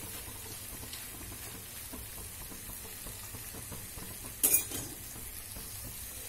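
Strips of maida khasta dough deep-frying in oil in a kadhai over a low flame: a steady sizzle of small bubbles as they are gently stirred with a slotted spoon. A short clatter of utensils about four and a half seconds in.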